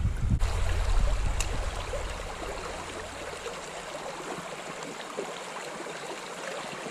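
Creek water flowing and babbling steadily over stones. A low rumble underneath fades out over the first two or three seconds.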